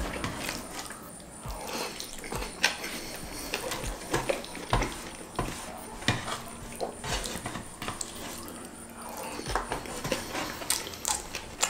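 Close-up eating sounds: a person chewing rice and chicken with wet lip smacks, and fingers picking rice off a metal baking tray, giving irregular clicks and light taps.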